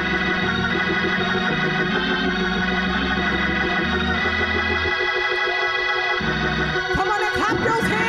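Organ playing long held chords over a bass line that shifts every second or two. Near the end a woman's voice begins singing into a microphone over it.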